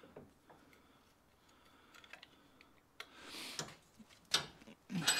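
Light clicks and taps of small metal and plastic parts being handled at a bench vise, with a short rustle about three seconds in and a louder clatter at the end.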